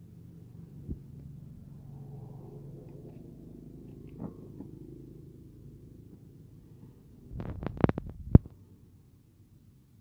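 Microwave oven running with a low hum that dies away about six and a half seconds in, then a quick run of sharp clicks and knocks, the last one the loudest.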